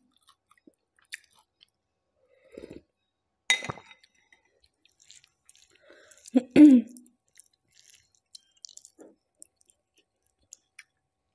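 Close-miked eating sounds: sparse wet chewing and small mouth clicks as rice and mutton curry are eaten by hand. A louder, short mouth sound comes about six and a half seconds in.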